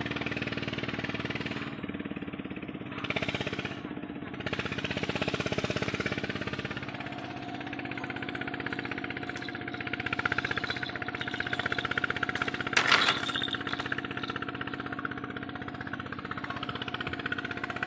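An engine running steadily with a fast, even pulse. A brief louder burst of noise comes about thirteen seconds in.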